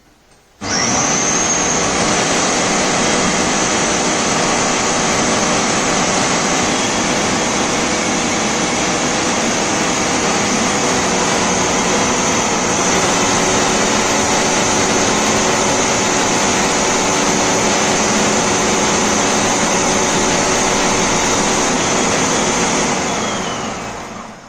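Usha FP 3811 food processor's 1000 W motor spinning the citrus juicer cone as sweet lime halves are pressed onto it: a steady motor hum with a high whine. It starts abruptly just under a second in and spins down near the end.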